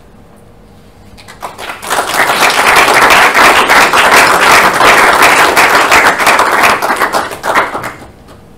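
Small audience applauding: the clapping starts about a second and a half in, holds steady, and dies away near the end.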